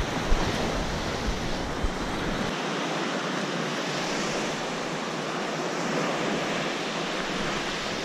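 Ocean surf washing onto the beach, with wind buffeting the microphone. The low wind rumble drops away about two and a half seconds in.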